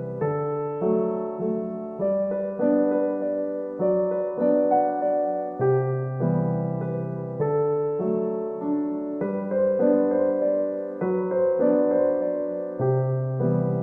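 Background music: gentle piano, notes struck one after another over a soft bass line.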